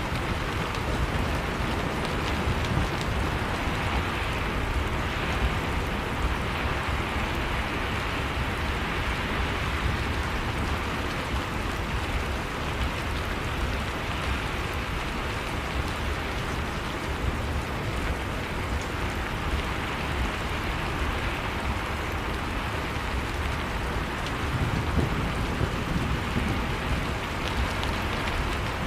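Heavy rain falling steadily, with a low rumble of thunder swelling briefly near the end.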